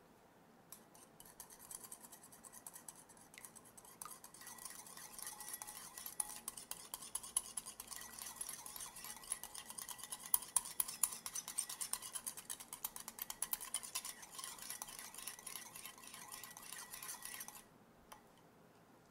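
Wire balloon whisk beating an egg-yolk mixture in a glass bowl, its wires clicking rapidly against the glass. It starts just under a second in and stops suddenly about a second and a half before the end.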